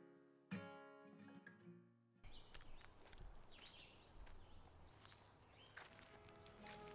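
An acoustic guitar strum rings out and fades over the first two seconds. It then cuts to faint outdoor ambience with a few brief bird chirps.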